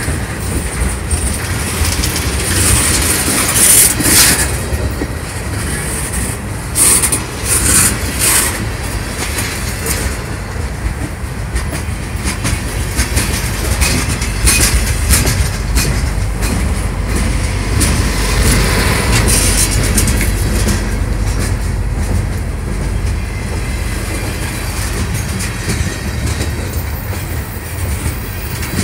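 Freight train cars (tank cars and covered hoppers) rolling past close by: a steady rumble of steel wheels on rail, with sharp clanks and clicks during roughly the first nine seconds.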